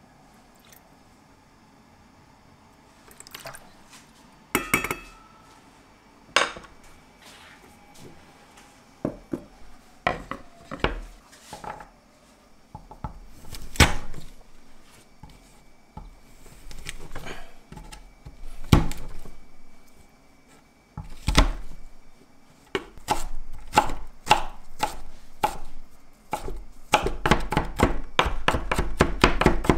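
Kitchen knife on a wooden cutting board: scattered knocks and taps as garlic cloves are crushed under the flat of the blade, then a fast run of chopping as the garlic is minced, densest near the end. A short ringing clink comes about five seconds in.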